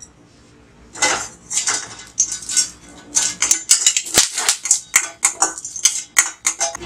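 Steel ladle scraping and clinking against a dry stainless steel kadai, stirring curry leaves as they roast, in quick repeated strokes that start about a second in.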